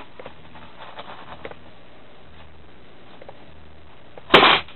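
A few faint clicks, then a short loud rattle of small plastic Lego Technic pieces dropped into a box, about four seconds in.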